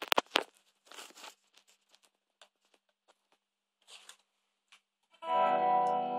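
A few sharp clicks and rustles of handling, then about five seconds in an electric guitar chord is strummed on a clean tone and rings on, slowly fading.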